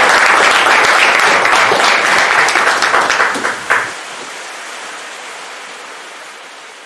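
Audience applauding, a dense patter of claps for about four seconds that is cut off abruptly. A quieter, even hiss follows and slowly fades out.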